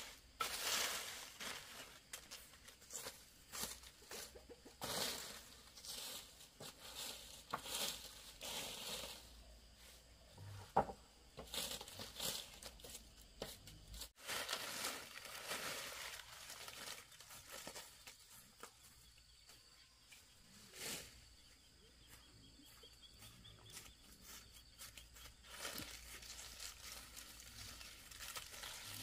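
Cut palm leaves rustling and crackling as they are pushed over grass and gathered up, in irregular bursts that are busier in the first half and again near the end.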